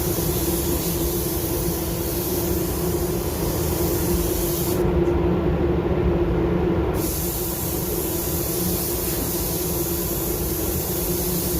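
Air spray gun hissing steadily as it sprays automotive paint, with a steady low hum underneath. The highest part of the hiss drops away for about two seconds midway, then returns.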